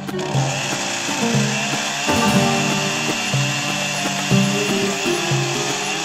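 Background music over a chainsaw running as its long bar cuts through the base of a large burnt tree trunk.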